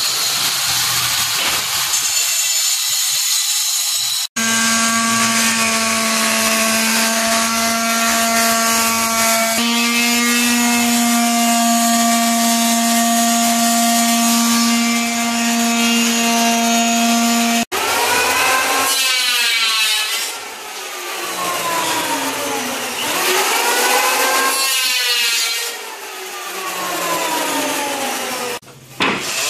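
Electric sheet sander running on wooden window frames: a steady motor whine with a rough rubbing hiss, and in the later part the whine rises and falls in pitch several times.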